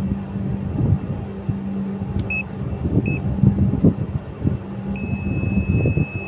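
Clamp meter beeping while its test probes are held on an aircon compressor's winding terminals: two short beeps about two seconds in, then one long steady beep near the end. Underneath is a low rumble with a steady low hum.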